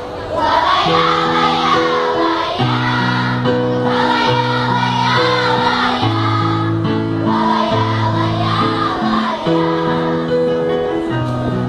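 Choir singing three long phrases without recognisable words over held keyboard chords, as the introduction to a song.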